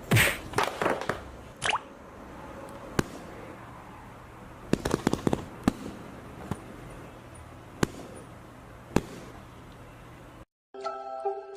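Scattered sharp clicks and pops over a low steady hum, the loudest at the very start and a quick cluster about five seconds in. After a brief silence near the end, music begins.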